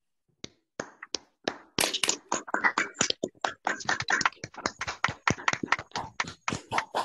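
Applause from several video-call participants, heard through the call's audio: separate sharp hand claps with dead silence between them. It starts with a few claps about half a second in and thickens into dense clapping from about two seconds on.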